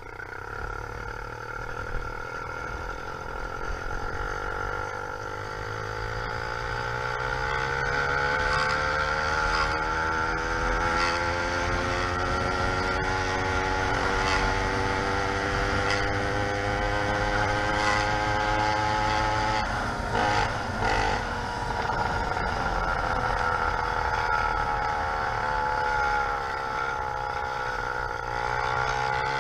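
YD100 two-stroke motorized-bicycle engine fitted with a window piston, running and growing louder over the first several seconds. Its pitch climbs steadily for about twenty seconds, stumbles briefly, then drops and climbs again near the end.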